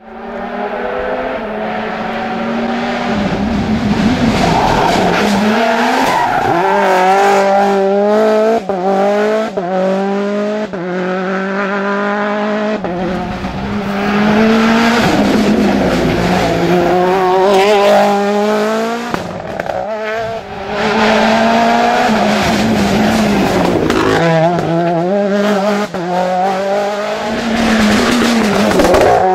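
Mini WRC rally car's turbocharged four-cylinder engine revving hard, its pitch climbing again and again as it accelerates and shifts up through the gears.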